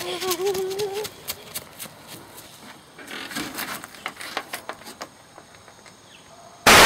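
A wavering, bleat-like cry about a second long, then scattered clicks and knocks with a second, weaker cry, ending in a short, very loud burst of noise that cuts off abruptly.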